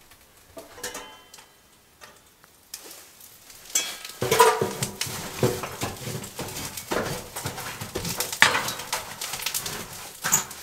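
Dense, irregular clicking and crackling with metallic clinks at a burning stainless steel wood stove, starting about four seconds in after a quieter opening.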